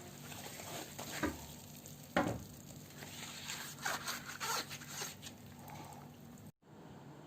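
Hands handling a football jersey: irregular rustling and scraping, with sharper knocks or snaps about a second in and again about two seconds in, over a faint steady hum.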